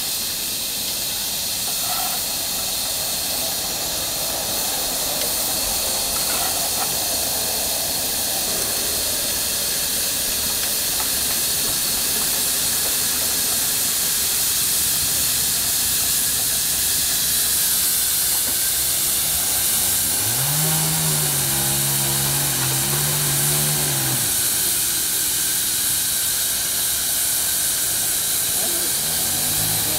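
Live-steam miniature locomotives hissing steam steadily. About two-thirds of the way through, a low droning tone swells in and holds for about four seconds, then starts again at the end.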